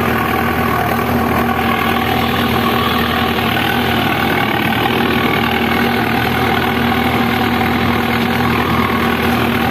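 Preet 6049 tractor's diesel engine running steadily while pulling a disc harrow, heard from the driver's seat beside the exhaust stack.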